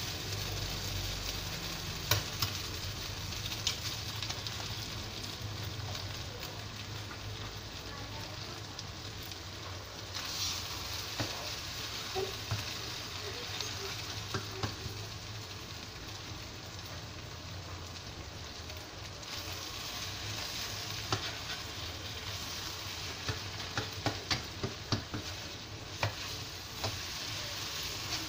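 Yellow noodles sizzling as they are dry stir-fried in a wok, with no water added, while a spatula stirs and tosses them. Sharp clicks of the spatula against the pan are scattered throughout, with a quick run of them near the end.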